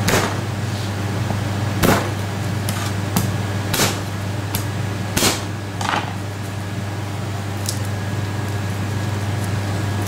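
Garlic cloves being crushed under the flat of a chef's knife on a plastic cutting board: about seven sharp knocks in the first six seconds, then quieter handling. A steady low hum runs underneath.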